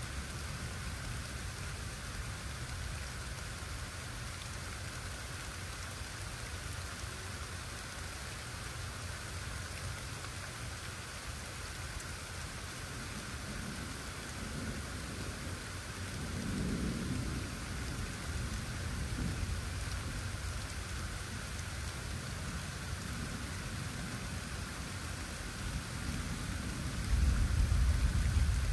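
Steady rain falling with a continuous hiss, and thunder rumbling low around the middle. A louder deep rumble starts near the end.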